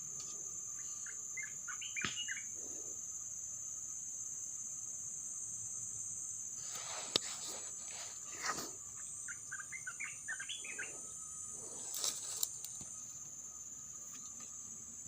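Crickets or similar insects droning steadily at a high pitch, with two short bouts of quick chirping calls and a few brief rustling noises.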